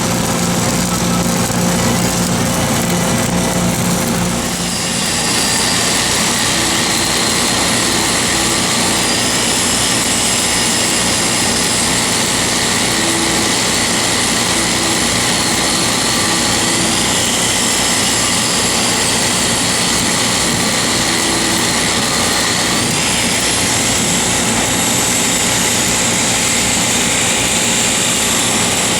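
Stick (shielded metal arc) welding arc crackling and hissing steadily on a steel pipe flange. A steady low engine-like hum runs under it for the first four or five seconds, then stops.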